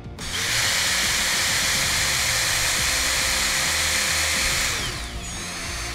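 Milwaukee cordless drill driving a self-drilling screw into a fiberglass (FRP) utility pole, running at a steady speed for about four seconds, then winding down with a falling whine.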